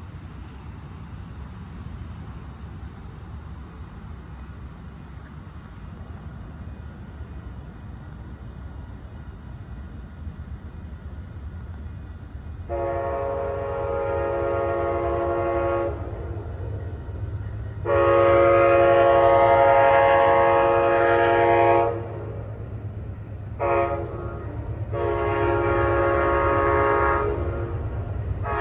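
Nathan K5LA five-chime horn on Amtrak P42DC 63 sounding the grade-crossing signal: two long blasts, one short and one long, with another blast beginning right at the end. Before the horn starts, about twelve seconds in, there is only a low steady rumble.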